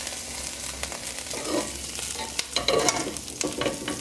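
A wooden spatula scraping and knocking against the rim and side of an aluminium pressure cooker holding seared beef, several times from about a second and a half in, over a steady hiss.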